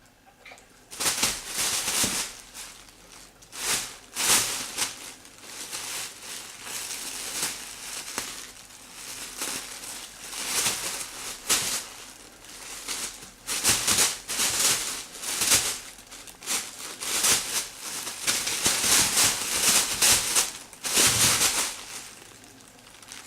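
A bag rustling and crinkling in repeated irregular spells as a kitten moves around inside it, starting about a second in and stopping just before the end.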